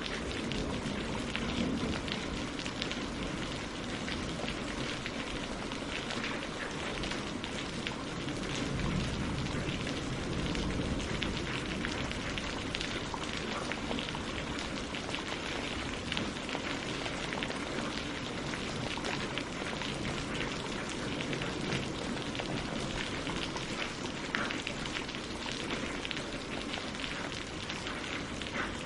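Steady rain falling on the water of a mountain lake and on tree leaves: an even hiss with a dense patter of individual drops.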